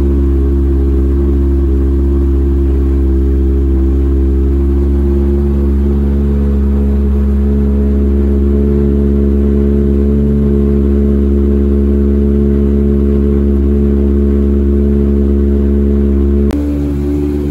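Toyota 4A-GE 1.6-litre 16-valve four-cylinder race engine running steadily at about 2,100 rpm in neutral while still cold, through a race exhaust. The tone changes abruptly about a second before the end.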